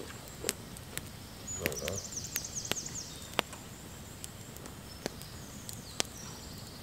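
Wood campfire crackling, with sharp irregular snaps and pops about once a second. A small bird sings a quick high twittering phrase about two seconds in, with a few more high notes near the end.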